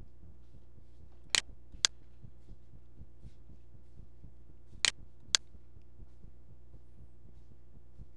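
Computer mouse clicking, two pairs of sharp clicks about half a second apart, one pair near the start and one about halfway through, over a steady low electrical hum.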